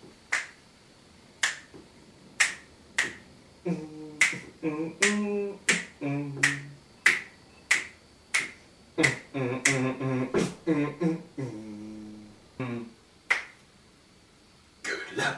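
A steady beat of finger snaps, with a man's voice singing wordless a cappella backing notes between them in two stretches, from about four seconds in and again from about nine seconds in.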